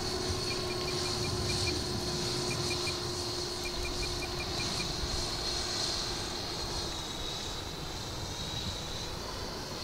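The 105 mm electric ducted fan of a Viperjet MK2 RC jet model whines steadily in flight, its high tone sliding slightly lower as the model passes.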